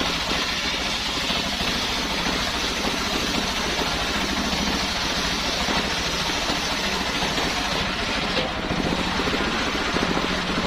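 Engine of a homemade circular sawmill running steadily with the blade turning; the sound changes and the higher hiss drops away about eight seconds in.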